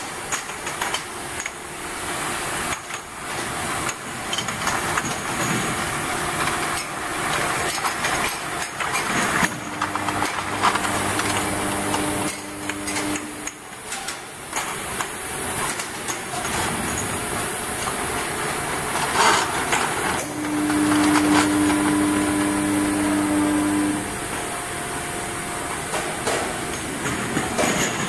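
Automatic ultrasonic bottle washing machine running: glass bottles knock and clink against each other as they are fed through the feeder, over a steady hiss of water spray. A steady hum comes in twice for a few seconds.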